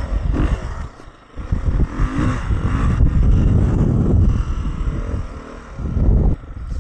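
Four-stroke 450-class Beta dirt bike engine under a rider, revving and easing off as the throttle is worked. It drops away sharply about a second in, picks back up, and eases off again near the end.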